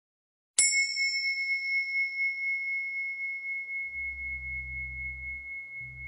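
A bell-like metal tone struck once about half a second in, a clear high note that rings on and slowly fades. A low hum comes in near four seconds.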